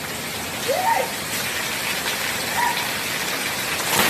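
Steady rushing noise of water, with a few faint short voice sounds over it.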